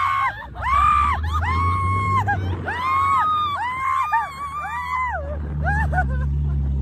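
Several people screaming in a string of short cries that rise and fall in pitch, about two a second, over the steady low hum of a vehicle engine.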